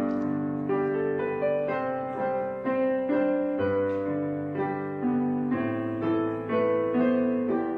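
Slow, gentle background piano music, single notes and chords struck about once a second and left to ring.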